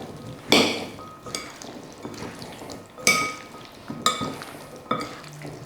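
A potato and chickpea salad being stirred in a bowl with a utensil: the utensil knocks against the bowl about once a second, each knock ringing briefly, with soft mixing sounds between.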